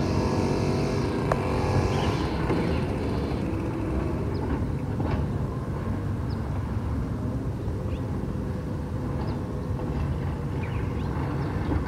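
Automated side-loader garbage truck's diesel engine running at a raised speed, dropping back to a steady low rumble about two seconds in while the truck works the curb. A few faint short high chirps come and go over it.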